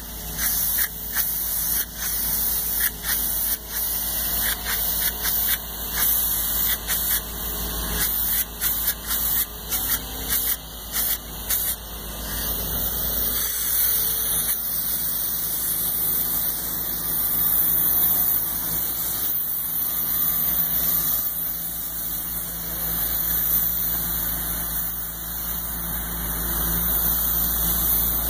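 Polyurea spray gun hissing as it sprays coating onto the steel bottom of an oilfield storage tank. For about the first twelve seconds it comes in short on-off bursts, then in longer steady passes. A steady low machine hum runs underneath.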